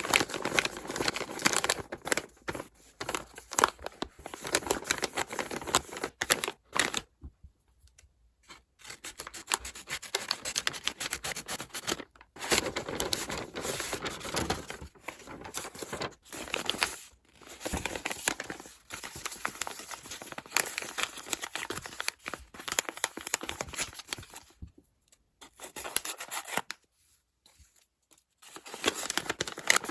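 Paper of a handmade paper blind bag crinkling, rustling and tearing in bursts as it is handled and opened, with two short lulls.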